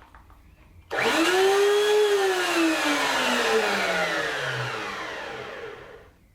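Electric router with its switch taped on, starting the moment it is plugged in. It whines up to speed within about a second, then the power is cut and it winds down over about four seconds with a steadily falling whine.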